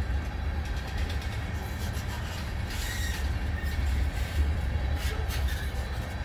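Freight train of tank cars rolling past: a steady low rumble of steel wheels on rail, with sharper clacks about three seconds and again about five seconds in.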